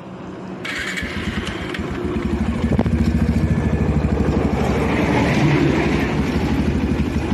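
Bajaj Pulsar 150's single-cylinder four-stroke engine starting about a second in, then running with a steady, even beat that grows louder over the next couple of seconds.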